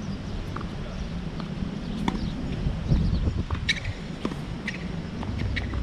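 Wind rumbling on the microphone, with a few short, sharp knocks from a tennis rally: a tennis ball struck by rackets and bouncing on a hard court.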